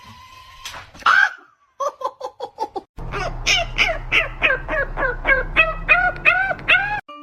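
A bird calling in quick repeated notes: a short run of clipped calls, then a longer run of arched, rising-and-falling calls about four a second over a steady low hum.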